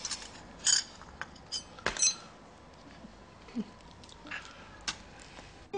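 Dishes and cutlery handled: several separate sharp clinks and knocks, the loudest about a second and two seconds in, over a low room hiss.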